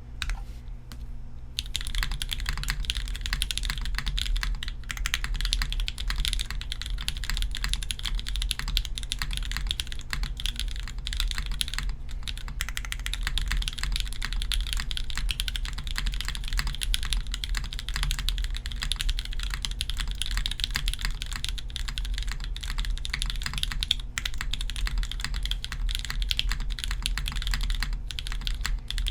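Fast continuous typing on a Cumulus60 prototype 60% mechanical keyboard with an aluminium plate, a leaf-spring silicone-ball mount, stock BSUN X switches and GMK keycaps. It begins as a few separate keystrokes, then becomes steady rapid clacking from about two seconds in, over a low steady hum.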